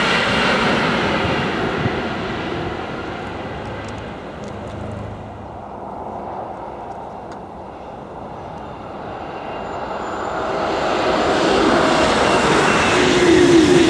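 High-speed train running past at speed: its rushing noise fades away over the first half, then another train approaches and its noise swells steadily toward the end.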